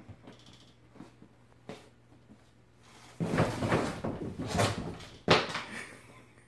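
A boot being dragged and knocked about on a hard laminate floor by a cat: a couple of seconds of rough scraping and bumping past the middle, then one sharp knock.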